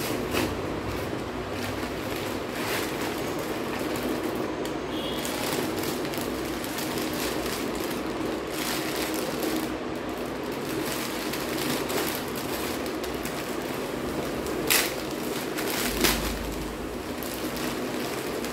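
Paper and plastic packaging rustling and crinkling as a courier parcel is torn open and a plastic-wrapped item is handled, over a steady background hum. Two sharper crackles come near the end.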